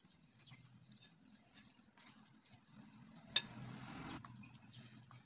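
Faint stirring and scraping of a silicone spatula working a soft butter mixture against the sides of a glass bowl, with a single sharp tap about three and a half seconds in and a brief louder stretch of scraping after it.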